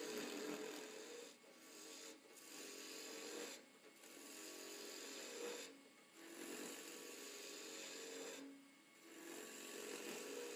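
Skew chisel cutting a spinning wood blank on a lathe, shavings peeling off with a rasping hiss in a series of passes of a second or two, with short breaks between them.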